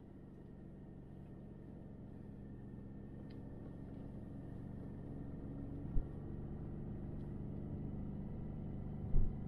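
Ford Raptor's twin-turbo EcoBoost V6 running at low speed as the truck drives over snow, heard from inside the cab as a steady low drone that grows slowly louder, with a thump about six seconds in and another near the end.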